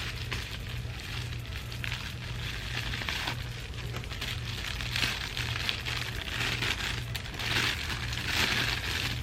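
Camera packaging rustling and crinkling as a kit lens is handled and unwrapped from its box, in irregular bursts that grow busier near the end, over a steady low hum.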